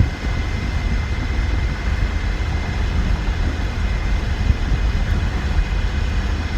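Inside a Ford Ranger pickup's cab at highway speed with the rear window out: steady wind and road rumble, with a thin, steady high whine running through it.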